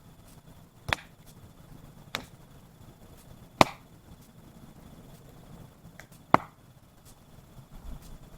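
Firewood being chopped: four sharp, irregularly spaced chops, the third and fourth the loudest.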